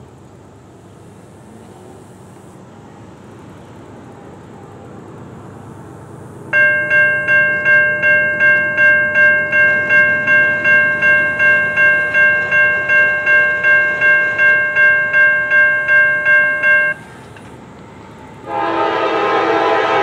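Railroad crossing bell ringing at about two and a half strokes a second, falling silent after about ten seconds. Then, near the end, the horn of the approaching Norfolk Southern AC44C6M lead locomotive sounds loud and steady.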